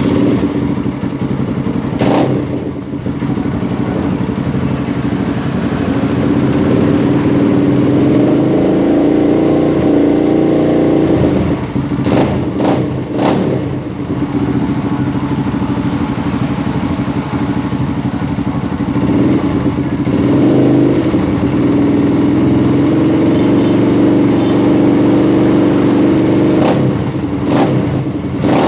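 Kawasaki KLX150BF dirt bike's single-cylinder four-stroke engine running through an FMF F4.1 full exhaust, held at a steady speed for long stretches, with a few brief sharp blips and changes in engine speed.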